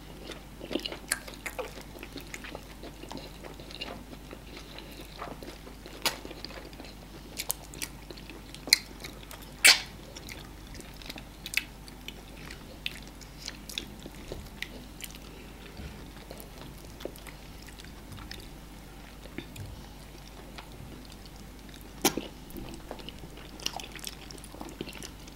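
Two people eating amala and ogbono soup with meat by hand: close chewing and biting with scattered sharp mouth clicks, a few louder ones about nine to ten seconds in and again at about twenty-two seconds.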